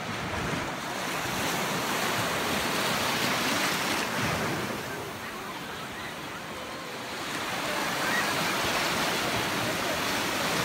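Small waves breaking and washing over shallow sand at the shoreline. The wash is louder in the first few seconds, eases in the middle and builds again near the end as the next wave comes in.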